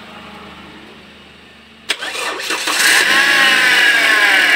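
Toyota Altis gasoline engine being started: a click as the starter engages about two seconds in, under a second of cranking, then the engine catches and runs at a fast idle, revs easing slightly. It starts promptly, a sign that the hard-starting fault is now cured.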